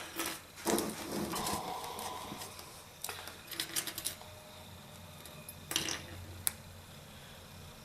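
Light clicks and clinks of small metal jewellery tools and sterling silver pieces being handled on a workbench, scattered through, with a quick cluster about three to four seconds in.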